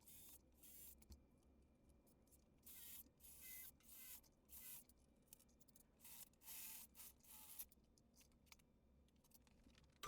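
Near silence, broken by about a dozen faint, brief scrapes and rustles.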